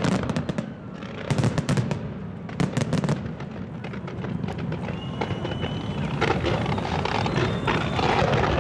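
Fireworks display: clusters of sharp bangs from bursting shells over the first three seconds, then denser crackling with a thin whistle about halfway through.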